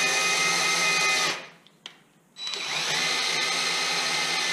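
Cordless drill turning a knee mill's knee crank through a 3D-printed hex adapter and socket, cranking the knee up or down. A steady motor whine stops about a second in, then starts again after a short pause, rising quickly to speed and running on.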